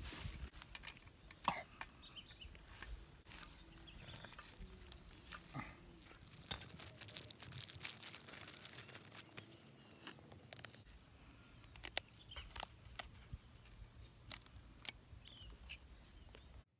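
Light clicks and knocks of plastic and metal chainsaw parts being handled and fitted. A small plastic parts bag crinkles as it is opened, mostly in the middle.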